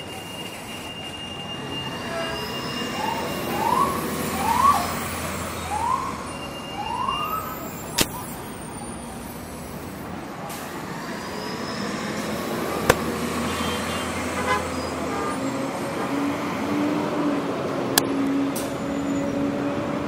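City street traffic noise with a siren giving four short rising whoops a few seconds in. A few sharp clicks stand out, and a low steady drone comes in near the end.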